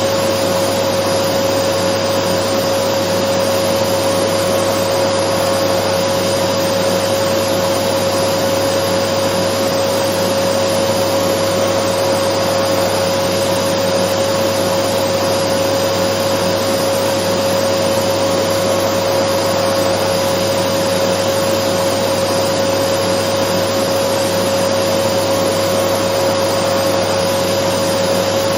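Dyson vacuum cleaner running continuously: an unchanging rushing whir with a steady high-pitched hum riding on it.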